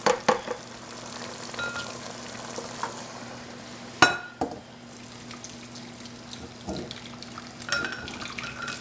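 A spatula stirring and scraping cooked chicken pieces in gravy in a nonstick pot, then the pot being tipped and scraped out into a ceramic bowl, the chicken and gravy sliding in. A sharp knock about four seconds in, with clatters near the start and near the end.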